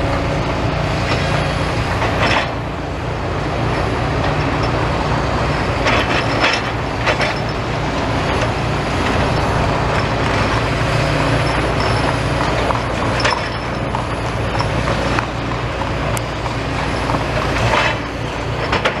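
Demolition excavator's diesel engine running steadily, with sharp knocks and crunches every few seconds as it breaks up the building.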